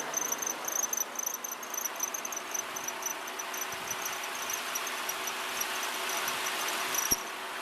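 The 2003 Mazda Protege's engine runs in drive with a harsh, hissing squeal from its accessory belt that grows louder over several seconds, with a single click near the end. The squeal after shifting into gear is the sign of a slipping belt, which the mechanic put down to a cheap belt.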